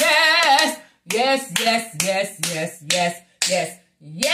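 A woman's voice in short, evenly spaced, pitched chanted syllables, about two a second, without clear words.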